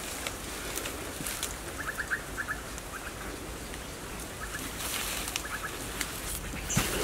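Bare hands scraping and pulling at dry soil and leaf litter, rustling and scratching. A bird calls in the background in short quick runs of three or four notes.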